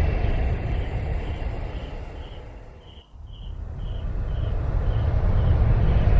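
Steady low rumbling outdoor noise that dips briefly about halfway through, with a faint high chirp repeating about twice a second.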